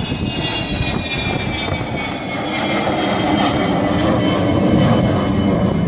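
Turbine-engined airplane passing close by, its engines giving a steady roar under several high whines that slowly fall in pitch as it goes past. The roar grows a little louder in the second half.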